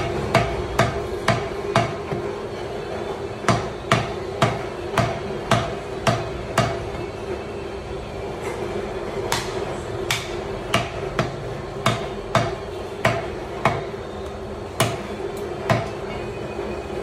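Butcher's cleaver chopping beef into cubes on a wooden chopping block: sharp chops about two a second in runs of several, with short pauses between runs. A steady low hum runs underneath.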